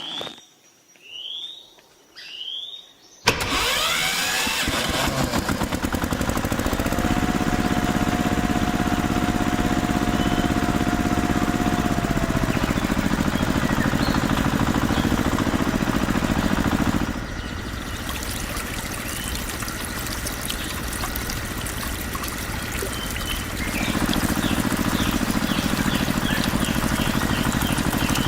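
Three short rising chirps, then a small engine starts suddenly about three seconds in and runs steadily. A faint whine is held over it for a few seconds, and its sound drops for several seconds in the second half before coming back up.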